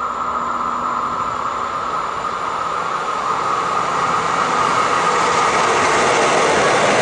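DB class 140 electric locomotive hauling a freight train as it approaches, the rumble of wheels on rails growing steadily louder as it comes close. A steady high tone sounds over it at first and fades out after two or three seconds.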